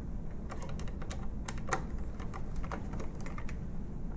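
Screwdriver turning a captive screw in the plastic cover plate of a motor starter, making a run of irregular light clicks as the screw is driven in.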